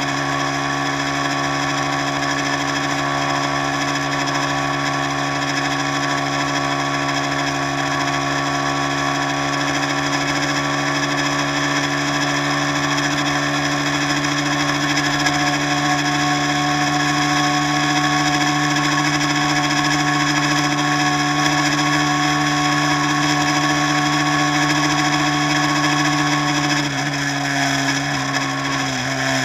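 Tour boat's engine running steadily with a constant hum, heard from on board. Its pitch drops slightly near the end as the engine eases off.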